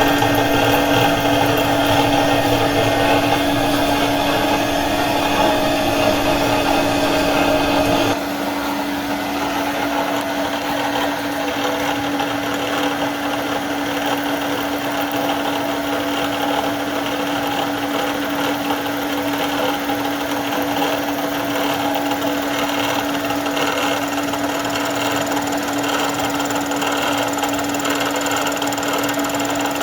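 A metalworking machine tool running steadily with a constant hum while facing a workpiece to size. About eight seconds in the sound drops and thins, losing much of its low rumble, and then runs on evenly.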